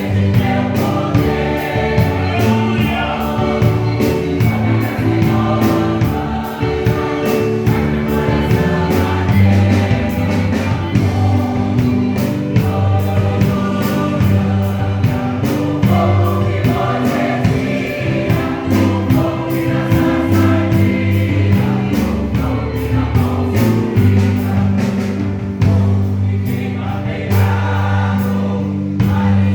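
Church choir singing a gospel song over a band, with a strong bass line and a steady drum beat.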